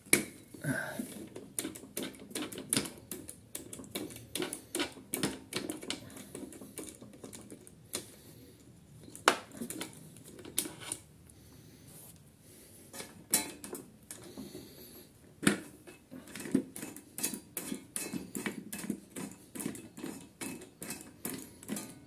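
Ratchet wrench clicking in quick runs while bolts on a lawnmower engine's starter motor are loosened, with a few louder metal clacks.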